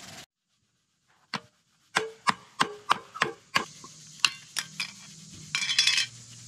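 A screwdriver prying the lid off a metal paint can: a series of sharp metallic clicks, roughly three a second, as it levers around the rim, then a short burst of rapid rattling clicks near the end.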